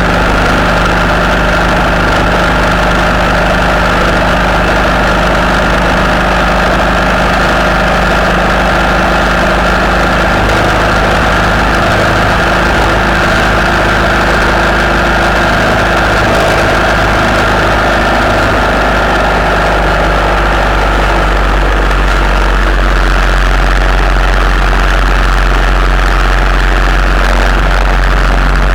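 Steady engine and road noise heard from on board a vehicle cruising along a motorway, with a constant high-pitched whine over a low drone.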